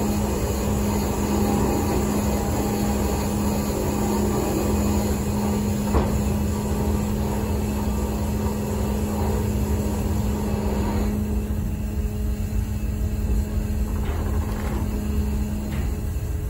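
Steady hum of a ferry's engines and onboard machinery, a constant low tone over a rumble and a hiss, with one short knock about six seconds in. The hiss fades about eleven seconds in, leaving the hum.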